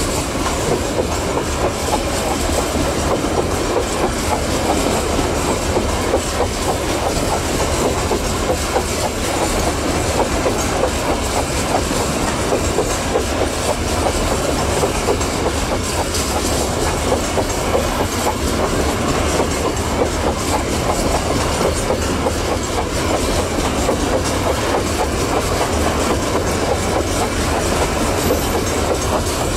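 Long Babaranjang coal train's hopper wagons rolling past close by: a steady, dense clickety-clack of steel wheels over the rail joints over a low rumble.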